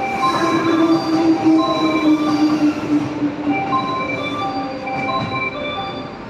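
Electric train moving through a station platform with squealing wheels: many short high squeals over a steady rumble, and a strong whine that slowly falls in pitch over the first three seconds or so.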